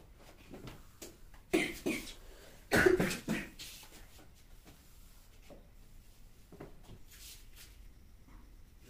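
A person coughing in two short fits, two coughs and then three or four more about a second later.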